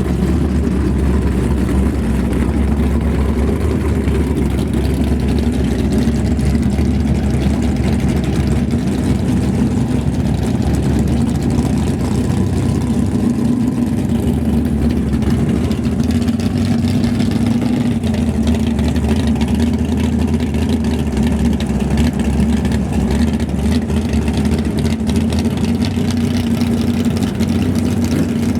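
Pro Stock drag car's naturally aspirated V8 engine idling loudly and steadily after start-up.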